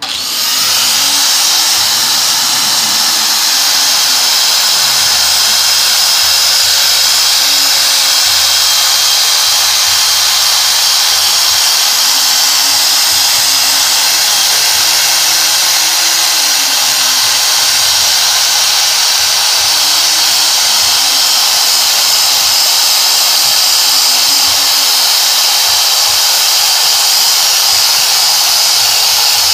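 Handheld angle grinder switched on and grinding continuously, a loud, steady, high-pitched grinding hiss as its spinning disc bears on metal.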